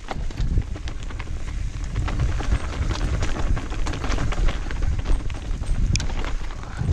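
Mountain bike riding downhill over a rocky, leaf-strewn singletrack: wind buffeting the microphone and tyres crunching over stones and dry leaves, with many quick rattling clicks from the bike over the bumps.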